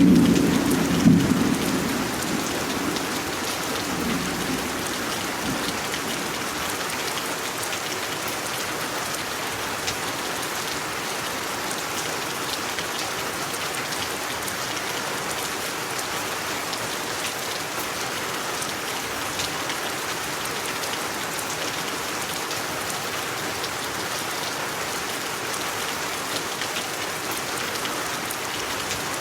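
Steady rain falling. A low rumble of thunder dies away over the first few seconds, leaving the rain's even hiss.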